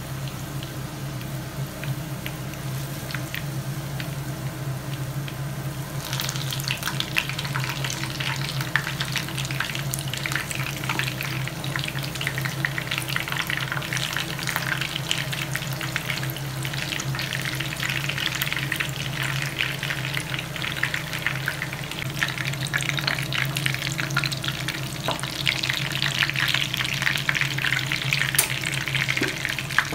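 Hot oil sizzling and crackling around balot frying in a nonstick pan as a wooden spatula stirs them. The crackling gets markedly louder about six seconds in and swells again near the end, over a steady low hum.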